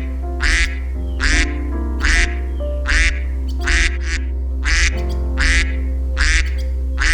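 Duck quacking over and over, about one short quack every 0.8 seconds, about nine in all, over steady background music with held notes.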